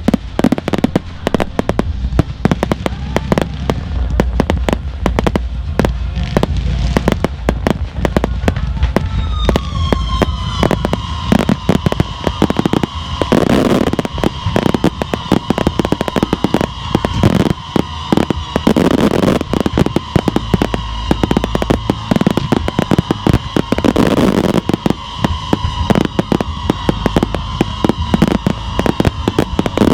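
Consumer fireworks (cakes and mortars) firing in a rapid, dense barrage of bangs and crackles. About a third of the way in, a high tone starts, drops slightly, then holds steady under the barrage.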